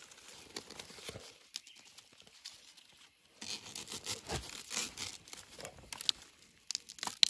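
Rustling and crackling of forest undergrowth, with scattered small snaps, a busier stretch in the middle and one sharper snap near the end.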